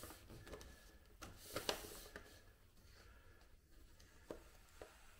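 Faint handling sounds of paper and pencil: paper rustling as it is pressed flat, a pencil scratching on it, and a few light taps, the clearest about one and a half seconds in.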